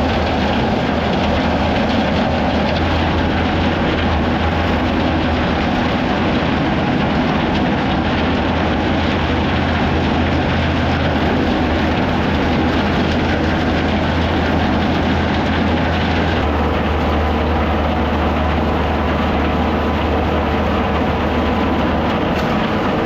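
John Deere 7510 tractor running under load with a flail stalk shredder chopping corn stalks: a loud, steady mechanical rumble with a constant whir. A new steady tone comes in about two thirds of the way through.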